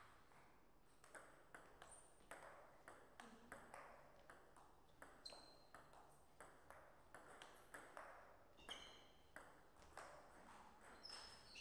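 Table tennis rally: the celluloid ball clicks off the players' rubber-faced paddles and the table top in a quick, regular run of sharp ticks, about two to three a second. A few short high squeaks come near the end.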